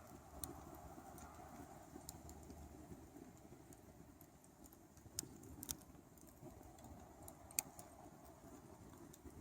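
Faint crackling of a smouldering campfire: a few sharp, scattered pops over a quiet background hiss.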